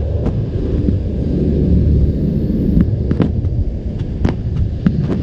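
Steady low rumble of drydock work noise, with scattered sharp knocks and clicks.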